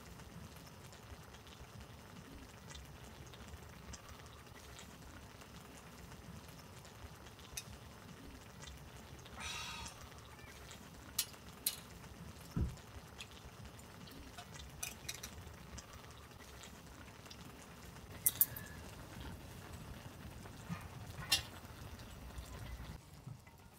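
Stew bubbling in a pan on a camp gas stove. A few sharp clinks of metal camping mugs are set down on the metal table.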